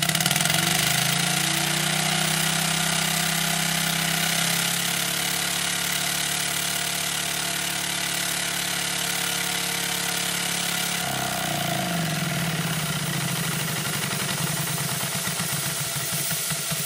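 2-inch scale Burrell model traction engine running under steam, with a steady hiss of steam and a fast, even running hum. A little over ten seconds in, the engine slows and its exhaust breaks into a slower, distinct beat as it is throttled back to slow running.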